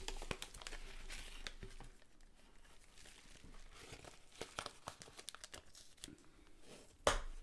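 Plastic packaging crinkling as it is handled, in scattered short rustles, with a louder crinkle near the end.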